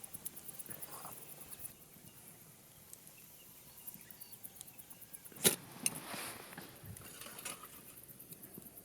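Faint, fast, high-pitched insect chirring, with a few soft clicks and one sharp knock about five and a half seconds in.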